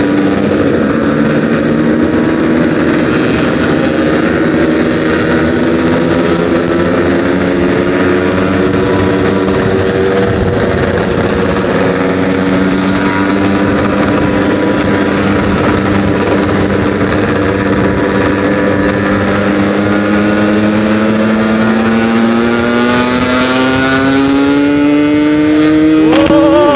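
Yamaha RX-King 135cc single-cylinder two-stroke engine with a 'packing power' aftermarket exhaust, running under way at a fairly steady pitch, then rising steadily near the end as the bike accelerates.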